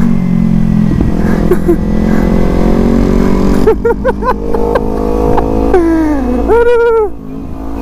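Kawasaki Z250 parallel-twin engine running with wind rush. About four seconds in there are several quick revs up and down, then the engine pitch falls away, then it is held briefly at a higher pitch before the level drops near the end.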